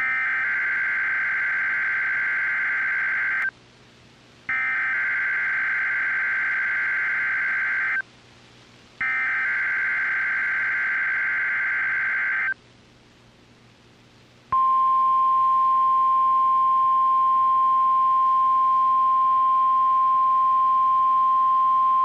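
NOAA Weather Radio alarm test: three bursts of warbling SAME digital header tones, each about three and a half seconds long with a second's gap between them, then, after a short pause, the steady single-pitched 1050 Hz weather alert tone sets in about fourteen seconds in and holds.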